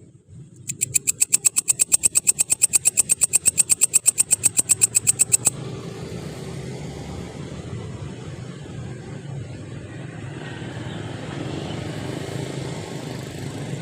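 A grasshopper's strange call: a fast, even train of sharp, high-pitched pulses, about ten a second, that stops abruptly about five seconds in. A steady low engine hum runs underneath throughout.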